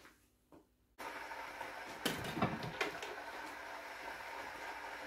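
A few faint clicks, then, from about a second in, a steady hiss of kitchen room noise with a cluster of sharp knocks and clatters.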